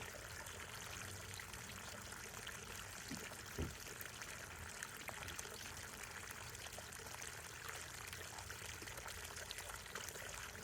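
Hot tub water pouring steadily into a tiered garden water fountain, a faint continuous splashing, with one brief thump about three and a half seconds in.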